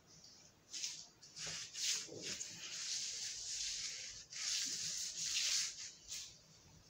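Dry scratchy rubbing and rustling on a surface, a few short strokes at first and then two long stretches with a brief break in the middle, stopping shortly before the end.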